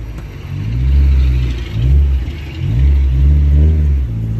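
Engine of a 1972 Toyota Celica heard from inside the cabin while it is driven, revving up and dropping back about three times.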